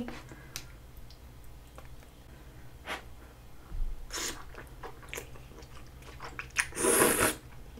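A person chewing saucy glass noodles close to the microphone, with scattered wet mouth clicks and a louder slurp of noodles near the end.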